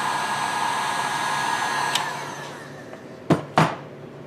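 Electric heat gun blowing steadily while shrinking heat-shrink tubing over a soldered wire joint. It is switched off with a click about two seconds in and its fan spins down, followed by two sharp knocks.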